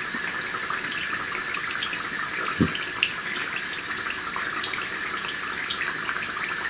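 Battered potato pakoras deep-frying in hot oil in a karahi: a steady sizzle full of small crackles, the potatoes browned and cooked through. A single low thump about two and a half seconds in.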